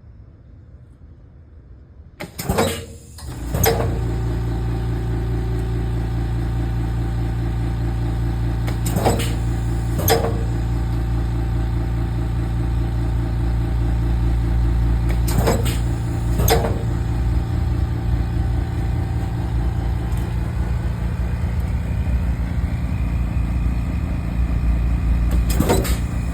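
A steady machine hum starts about three seconds in and runs on. Over it, the Norlok Surelok III rivetless riveter makes paired sharp clicks three times, about six seconds apart, as it clinches sheet metal together.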